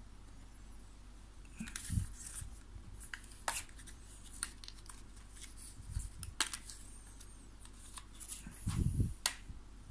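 Handling noise: scattered light clicks, taps and rustles of hands moving equipment around, with a soft bump about two seconds in and a couple more near the end.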